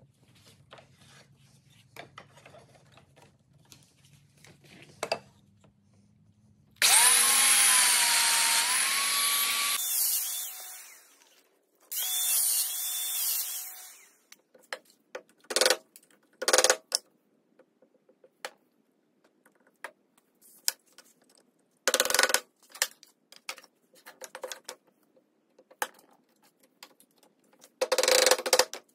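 A handheld power tool with dust extraction runs twice, first for about three seconds and then for about two, its motor whine wavering under load as it cuts slots into the end of a clamped wooden board. Then come scattered sharp wooden knocks and taps as the parts are handled and fitted, with a quick run of mallet blows near the end.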